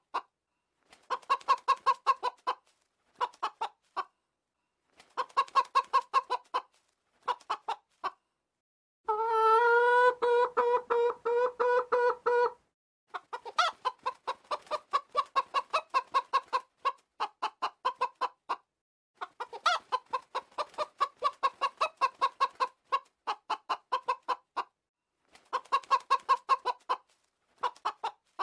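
Domestic chickens clucking in quick runs of short clucks, broken by pauses, with one drawn-out call about nine seconds in that lasts some three seconds.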